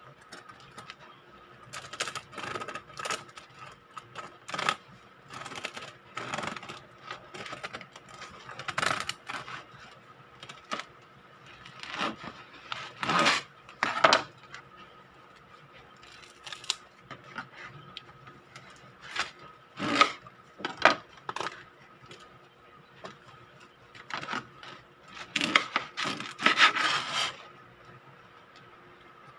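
Serrated bread knife sawing through a crusty cheese-and-jalapeño sourdough loaf on a wooden board: rasping strokes with the crust crunching, in irregular bouts with pauses between. The loudest bouts come about halfway through and again near the end.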